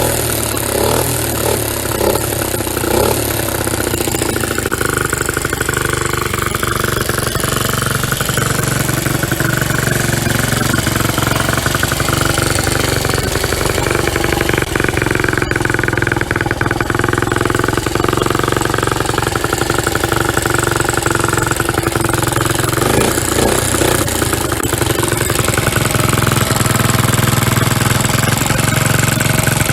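A 1965 Honda S65's small single-cylinder four-stroke engine running steadily, its pitch rising and falling a little as the throttle varies.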